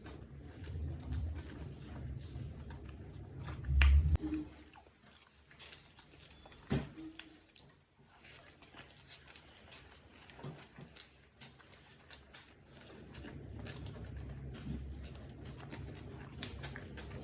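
Close-miked chewing and biting of a big mouthful of chicken biryani: wet mouth sounds with small crunches and clicks, and a loud burst about four seconds in.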